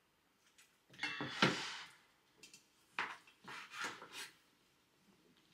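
Kitchen work noises from dishes and utensils on a worktop. A scraping, rustling handling sound starts about a second in, a sharp click comes about three seconds in, and a few short knocks follow.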